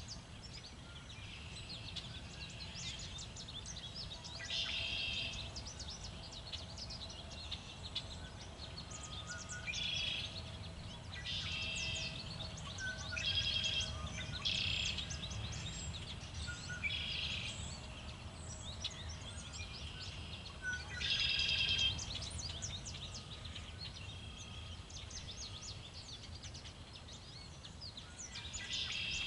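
Songbirds chirping and singing in short bursts every second or two, over a steady low rumble of wind.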